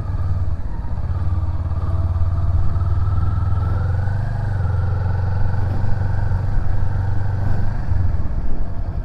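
Kawasaki Ninja 400 parallel-twin engine running while riding, its note rising over a couple of seconds and then easing off.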